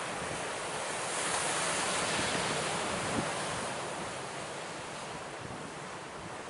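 Ocean surf breaking on a rocky shore, a steady rushing that swells about a second in and eases off toward the end, with some wind buffeting the microphone.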